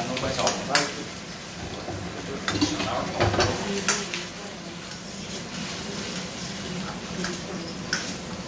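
Metal ladle stirring and scraping in a wok of pork and pineapple in thickened sweet and sour sauce, with a few sharp knocks of the ladle against the pan and a light sizzle.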